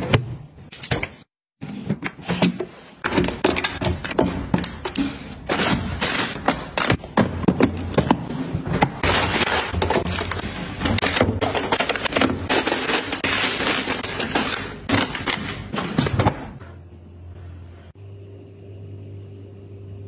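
Close-up handling of groceries and packaging: crinkling plastic, clicks and knocks of items and containers being moved and set down. About three seconds before the end it gives way to a steady low hum.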